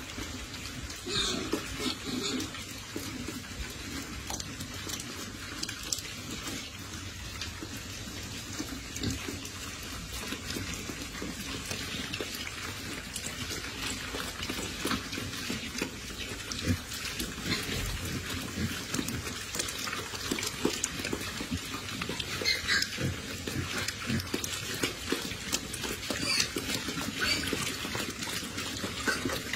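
A group of pigs eating dry feed from a round feeder pan: a continuous, irregular mass of chewing and crunching clicks.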